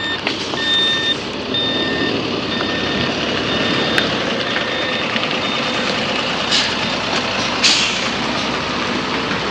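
A large truck's reversing alarm beeping about once a second over the truck's engine running, the beeps fading out about halfway through. Two short hisses come later.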